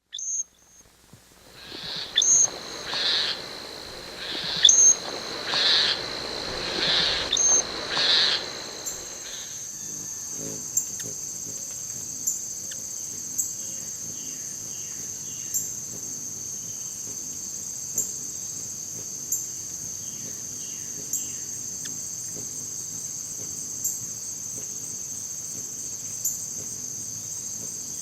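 Steady high-pitched insect trill, typical of crickets or katydids, with a faint sharp tick about every second. For the first several seconds a louder, noisy sound swells and fades roughly once a second.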